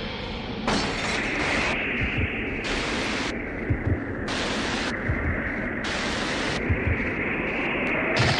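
Film sound-design drone: a steady electronic hum with static-like hiss. The hiss cuts in and out abruptly several times. Under it comes a low double thump about every second and a half.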